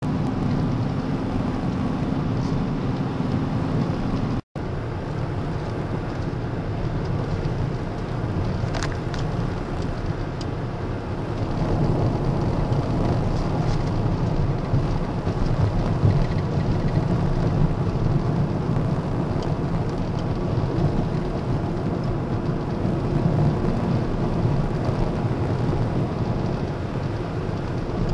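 Steady road and engine noise heard from inside a moving car, mostly a low rumble. It cuts out briefly about four and a half seconds in, then carries on.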